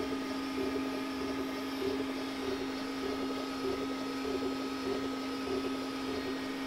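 Glowforge Basic laser engraver running a job: the laser arm moving back and forth with a soft whir that comes and goes, over a steady low hum from an inline exhaust fan at half speed. The fan is quiet enough that the arm's movement is most of what is heard.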